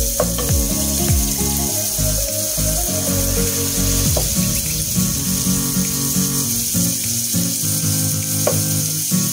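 Background music with a steady beat, over a steady hiss. A wooden spoon knocks against the pot a few times as it mashes boiled potatoes.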